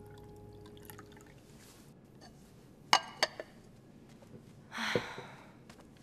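Milk being poured from a small enamel saucepan into a drinking glass: soft liquid sounds, two sharp clinks about three seconds in, and a short rush of noise near the end.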